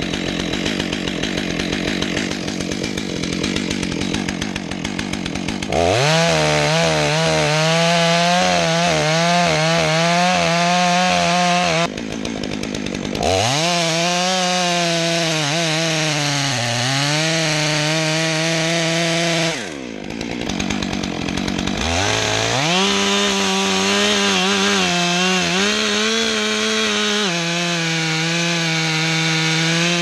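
Stihl MS 661 C-M two-stroke chainsaw cutting into a large tree trunk. It runs slower at first, then about six seconds in revs hard to full throttle, and does so three times, falling back toward idle briefly between cuts. The pitch sags for a moment under load during the middle cut.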